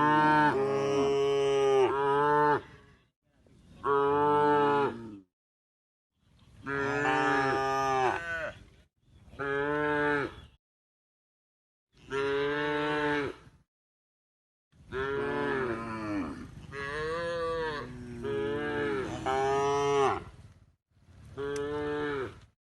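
Cattle mooing: about seven long moos one after another, each cut off sharply into dead silence before the next, the longest run of calls near the end.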